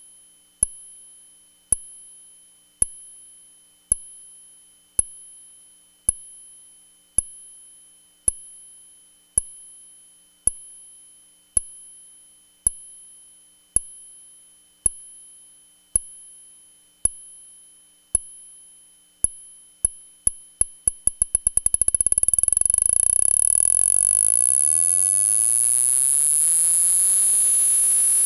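Eurorack modular synthesizer: a short, high-pitched ping repeating about once a second. About twenty seconds in the pings speed up into a rapid roll and merge into a steady high whine, with lower tones sweeping upward beneath it.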